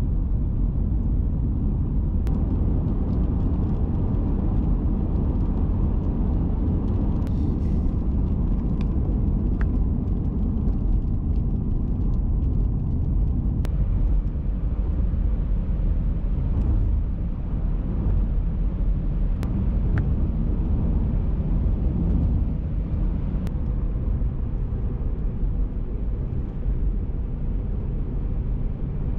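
Car driving along a paved road, heard from inside the cabin: a steady low rumble of engine and tyre noise.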